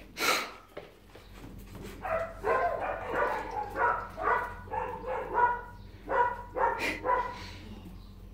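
Young dog whining in a run of short, high-pitched yips, about two a second, from about two seconds in until near the end. A short breathy burst of noise comes right at the start.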